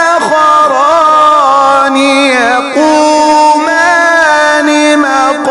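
Male voice reciting the Quran in mujawwad style: one long, melodic, drawn-out phrase with ornamented rises and falls in pitch.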